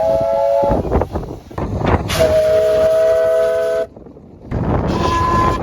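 Locomotive chord horn sounding several steady tones together, first a short blast and then a longer blast of about a second and a half, over the rumble of a moving train. The sound cuts out abruptly about four seconds in, then the train noise returns.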